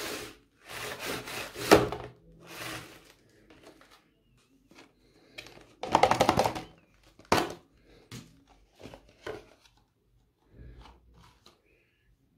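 Hands handling plastic soap tubes: irregular rubbing and scraping noises in short bursts, with several sharp clicks, loudest about six seconds in.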